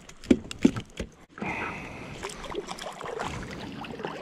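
Three sharp knocks against a plastic kayak in the first second, made while handling a freshly caught kahawai, then steady splashing and sloshing of water as a hand swishes the fish in the sea alongside the kayak.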